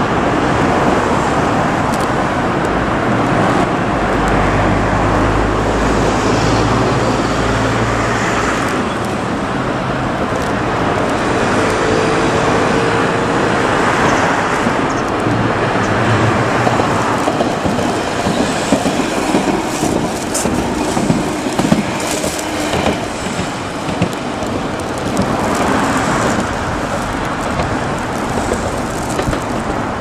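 Steady road traffic noise with an old Kagoshima City Tram 500-series streetcar (car 501) passing below, its wheels clicking sharply over rail joints for a few seconds past the middle.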